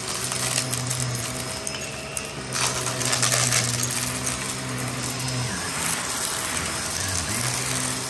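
Shark upright vacuum cleaner running over carpet, its motor humming steadily while small bits of sprinkled debris crackle and rattle as they are sucked up. The hum wavers and dips between about five and seven seconds in.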